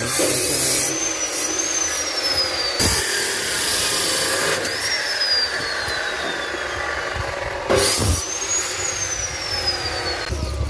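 Abrasive cut-off saw cutting steel rack sections, giving a harsh grinding hiss. Its motor whine rises when it spins up and then sinks slowly as the disc bites into the metal, three times.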